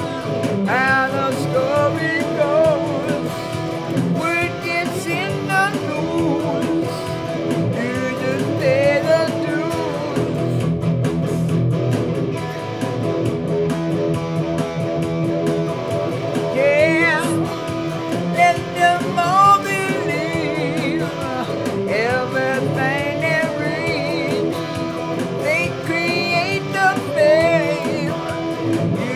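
Electric guitar played over a drum-machine beat, the lead line full of string bends and vibrato.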